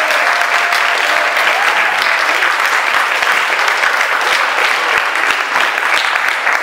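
Audience applauding steadily, a dense run of many hands clapping at once.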